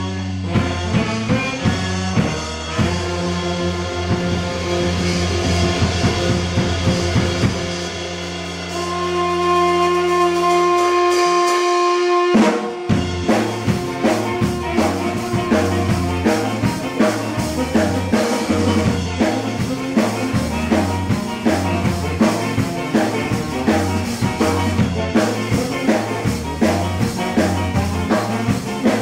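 Live band rehearsing a ska tune, with drum kit, electric bass guitar and guitar. A few seconds in the band holds one long chord over a sustained bass note; it cuts off sharply about twelve seconds in and the driving beat with a moving bass line comes back in.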